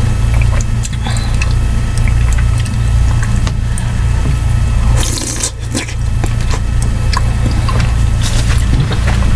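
Close-miked eating of chicken-and-rice vegetable soup: wet slurping and chewing off a metal spoon, with scattered clicks of the spoon in the ceramic mug. A steady low hum runs underneath.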